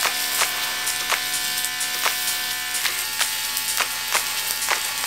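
Chuck eye roll steak sizzling on a hot cast-iron grill pan, a steady hiss with the fat popping and spitting at irregular intervals.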